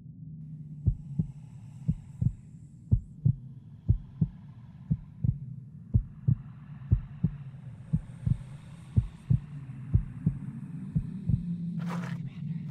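Sound-effect heartbeat, a paired lub-dub thump about once a second, over a steady low drone. A short rush of noise cuts in near the end.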